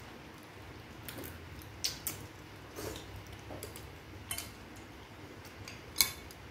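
Metal spoons clicking and scraping against ceramic bowls as people eat, in a handful of scattered light clinks, the sharpest one near the end.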